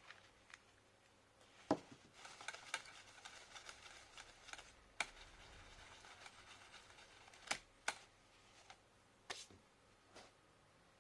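Faint handling of laptop parts by hand: scattered light clicks and taps, with a stretch of soft scratchy rubbing about two to five seconds in.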